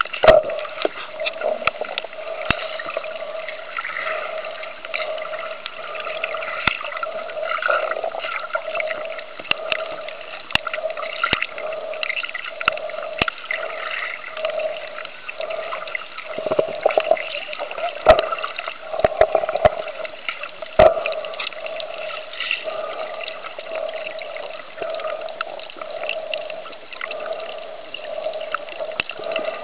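Muffled underwater water noise from a camera held below the surface while snorkelling: continuous sloshing and gurgling that swells and fades, with scattered sharp clicks and knocks.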